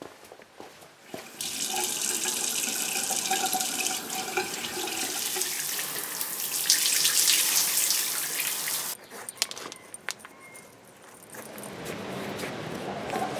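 Shower running: a steady rush of water spraying onto the shower floor, starting about a second in and cutting off suddenly about nine seconds in.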